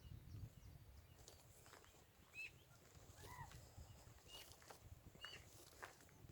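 Near silence with a few faint, short bird chirps scattered through it over a low rumble.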